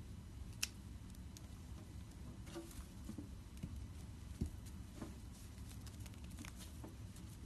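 Faint, scattered sticky clicks and crackles from a slime-filled stress ball being cut, with a sharper click about half a second in.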